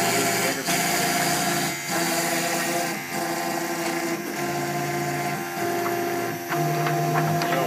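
CNC machine running a cut: its stepper motors drone in several steady tones that change pitch every second or so as the moves change, over a steady high hiss of spindle and cutting noise.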